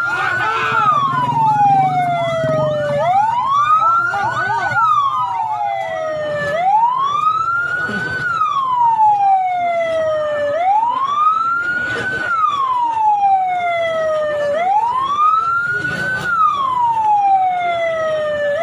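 Emergency vehicle siren wailing, rising and falling in a slow cycle of about four seconds, repeated four to five times. A second siren overlaps it for the first few seconds.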